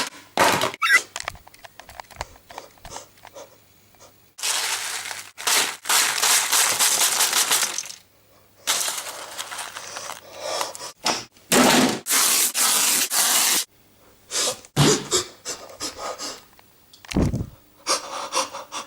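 Irregular bursts of harsh scraping and cracking noise, each lasting from a fraction of a second to about two seconds, with a single low thud near the end.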